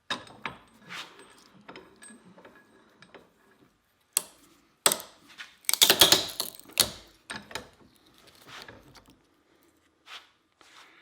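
Irregular metallic knocks and clatter, a few light taps at first and then a run of loud sharp strikes a little past the middle: the stuck handle remnant and wedge being knocked out of an old splitting-maul head.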